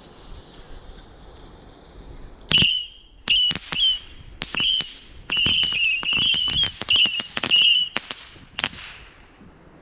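Vulcan Saturn Missiles 25-shot mini fireworks battery firing: after a faint hiss, a rapid string of short, warbling whistles with sharp cracks starts about two and a half seconds in and stops near the end.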